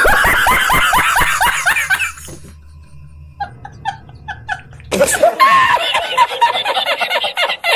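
A man laughing hard in rapid ha-ha bursts. It dies down to a few quieter giggles about two seconds in and breaks out loudly again around five seconds in.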